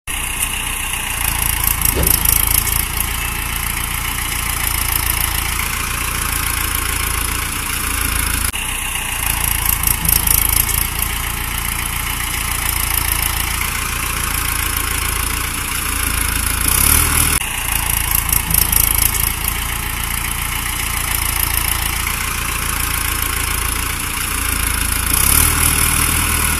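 Tractor engine running steadily, with a low rumble and a brighter high-pitched rattle that comes back about every eight seconds, like a repeating recording.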